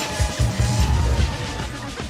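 Loud film soundtrack music with a strong low beat.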